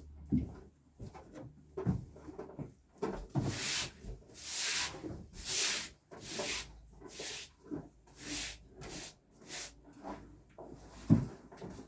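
A run of rough scraping strokes, about one a second, mixed with scattered knocks, the sharpest near the end.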